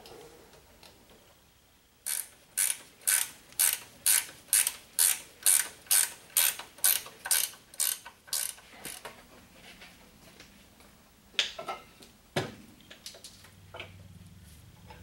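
Hand ratchet wrench worked back and forth on a bolt, about two strokes a second for roughly seven seconds, then a few single clicks and a knock.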